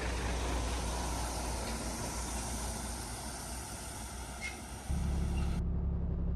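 Truck running, heard from inside the cab: steady engine and road noise. About five seconds in it switches abruptly to a louder, steadier low engine hum.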